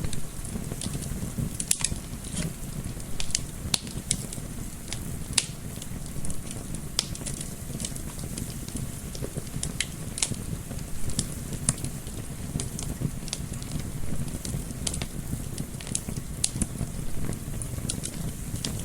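Wood fire in a fireplace crackling, with irregular sharp pops several times a second, over a steady low rush mixed with gentle wind.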